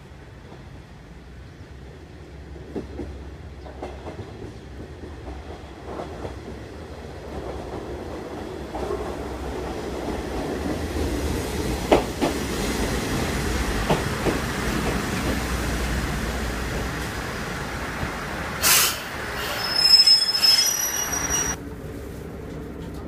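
An Aizu Railway AT-700 diesel railcar arrives at a station. Its engine rumble and wheel noise build as it approaches, with wheels clicking over rail joints. Near the end come a sharp hiss of air and high brake squeals as it stops, then a quieter steady hum from inside the car.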